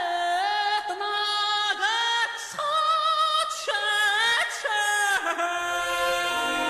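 A woman's high solo singing voice in background music, holding wavering notes with slides between them; lower accompaniment comes in near the end.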